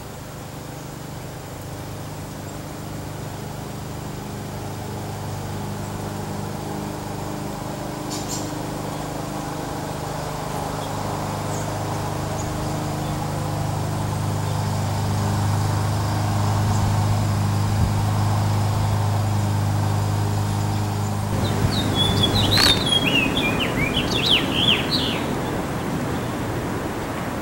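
Steady low motor hum that slowly grows louder and then stops suddenly. A house finch follows with a quick, jumbled burst of high chirping warble notes lasting a few seconds.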